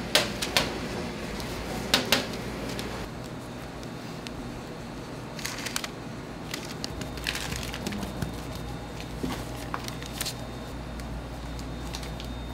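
Bakery kitchen handling sounds: two pairs of sharp knocks or clacks at the start and about two seconds in, then lighter scattered taps and crackles from about five seconds, over a steady low hum.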